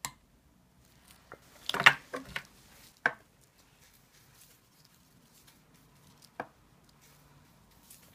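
A handful of light knocks and clinks from a paintbrush and small stainless-steel wax tins on a metal hot plate, the loudest cluster about two seconds in and single knocks about three and six seconds in.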